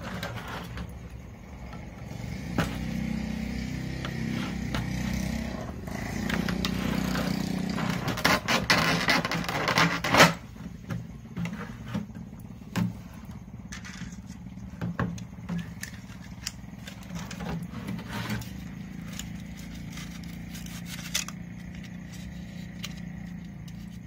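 Knocks, taps and scrapes of a large plastic water jug and a PVC pipe being handled on wooden slats, over a steady low hum. The loudest knocks come in a cluster about eight to ten seconds in, then scattered clicks follow.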